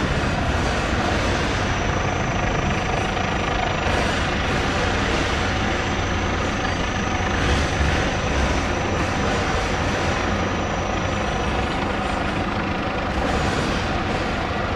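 Airbus H145 (BK117 D-2) twin-turbine helicopter hovering: steady rotor and engine noise, with a thin high whine that fades out about eleven seconds in.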